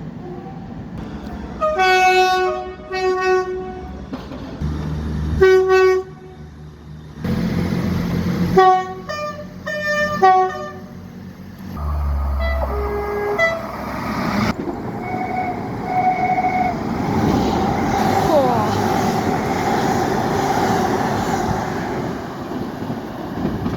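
A run of short train horn blasts from British trains, about ten in all, some held for half a second or more, with abrupt changes between them. Over the second half a train runs by with a steady rumble.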